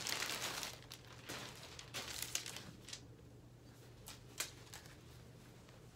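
Crinkling and rustling of a football shirt's packaging being handled and opened, loudest in the first second, with a sharp click about four and a half seconds in.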